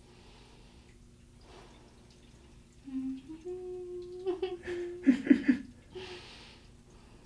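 A woman humming under her breath: a low held note that steps up in pitch and is held, breaking about five seconds in into a louder, choppy burst of voice with several sharp catches. The humming is her way of coping with a painful treatment.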